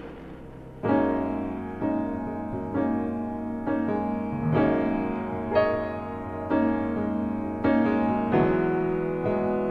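Background music: slow piano chords, a new chord struck about once a second, each left to ring and fade, starting just under a second in.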